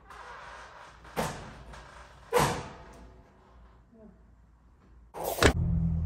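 Knocks and scrapes of a drop-ceiling tile and supply diffuser being lifted and slid about in the metal ceiling grid, two sharp knocks a second or so apart. Near the end a louder knock, then a steady low hum sets in.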